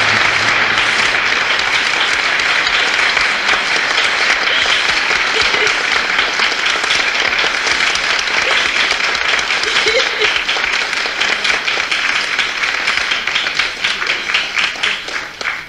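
Audience applause, dense and steady, thinning into separate claps near the end.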